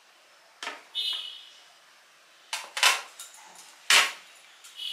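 Hard tea trays knocking and clacking against one another as they are handled and pulled apart, about six sharp knocks, a couple with a brief ringing tone.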